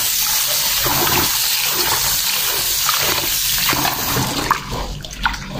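Kitchen tap running into an aluminium pot of rice in a sink while a hand swirls and rubs the grains to wash them. The flow stops about four and a half seconds in, leaving small splashes of water in the pot.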